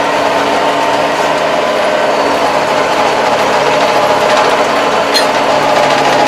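Kubota 75-horsepower tractor's diesel engine running steadily, heard from inside the cab, with one short click about five seconds in.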